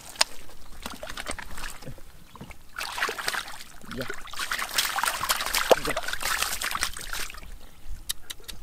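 Hands groping through wet mud and shallow muddy water, squelching, sloshing and splashing. It is heaviest in the middle few seconds, with a few sharp clicks near the end.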